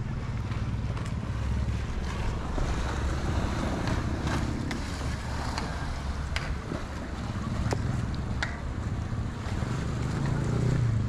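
Wind buffeting the microphone in a steady low rumble, over choppy sea water lapping and splashing against a concrete seawall, with a few light clicks.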